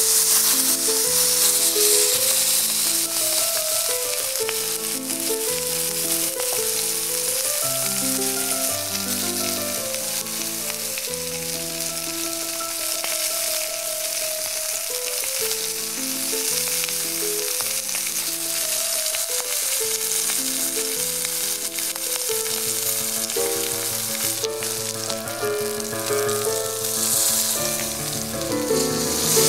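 A thick porterhouse steak sizzling as it sears in a hot cast iron skillet, a steady hiss of frying fat. Background music plays under it.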